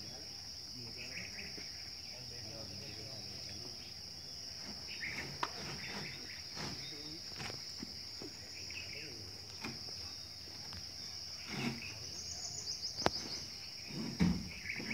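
Steady high-pitched drone of insects, with a few scattered knocks and a short rapid trill near the end.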